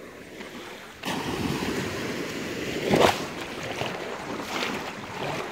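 Small waves washing in and breaking at the edge of a sandy beach: a soft wash that swells suddenly about a second in, with a louder splash about three seconds in.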